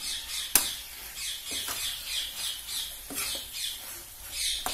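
Green peas tipped into a steel kadai of masala, with one sharp clink about half a second in, then stirred with a perforated steel spatula. Short high squeaks that fall in pitch repeat a few times a second.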